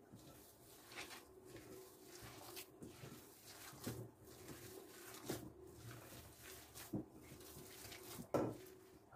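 A series of soft knocks and clicks, about six of them spaced a second or so apart, over a faint hum, the last one the loudest.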